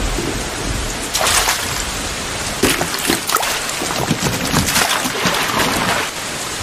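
Rain falling steadily, with several louder bursts of splashing water.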